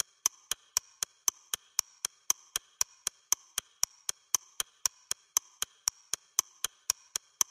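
Steady, even clock-like ticking, about four sharp ticks a second, each with a bright high ring.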